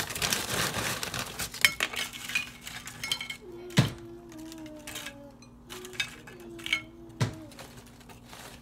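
Crisp tortilla chip cups being picked up and set down around a ceramic plate: light crackling and clinks against the plate, with two sharper knocks about four and seven seconds in.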